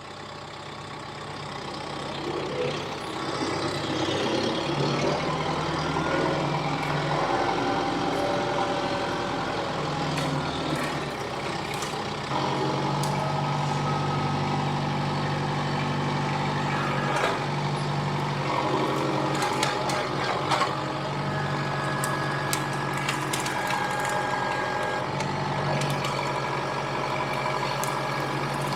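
Kubota M6060 tractor's diesel engine running, its speed and load rising and falling as it works, picking up over the first few seconds. Scattered sharp clicks sound over it.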